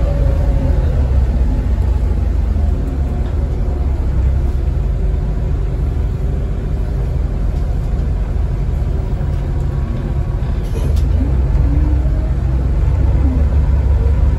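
Volvo B7TL double-decker bus's diesel engine heard from inside the passenger saloon while the bus drives: a steady low rumble that eases off through the middle, then picks up again about ten seconds in with rising engine pitch as the bus accelerates.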